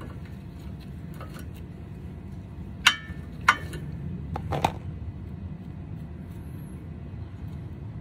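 A few sharp metallic clinks, brake pads' steel backing plates knocking against the caliper bracket and its spring clips as they are handled and fitted, over a steady low background rumble.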